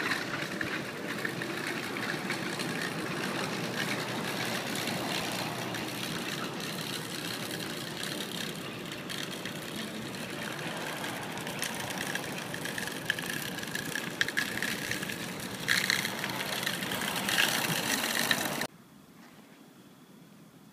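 Steady rushing noise of road traffic on a snow-wet road, with a few louder swells near the end, then it cuts off suddenly to a faint hiss.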